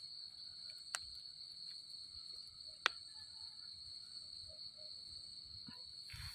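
Steady high-pitched drone of night insects, unbroken throughout, with two sharp clicks about one and three seconds in.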